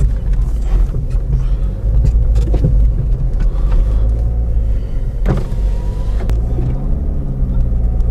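A car driving, its engine and road noise making a steady low rumble, with a brief knock about five seconds in.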